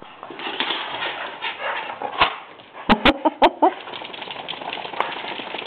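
A small dog gives a quick run of short barks about three seconds in, mixed with sharp clicks, over a steady rustling.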